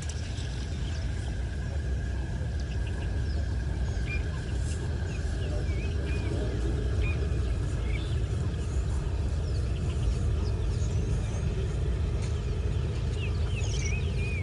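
Many short bird chirps and whistles scattered over a steady low rumble, with a faint steady high tone that fades after the first few seconds.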